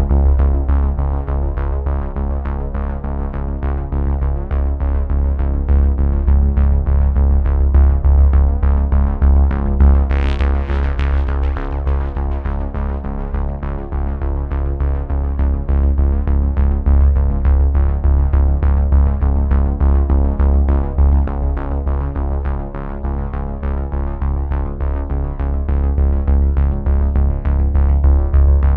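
Background music: a synthesizer track with a strong bass and a steady beat, with a brief bright swell about ten seconds in.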